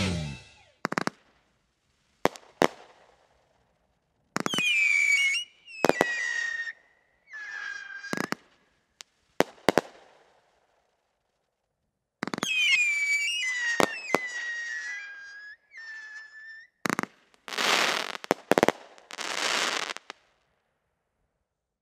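A 500-gram, 25-shot fan cake firework firing a sequence of sharp launch cracks, with two volleys of whistling mines whose whistles fall in pitch. Two longer hissing bursts follow near the end.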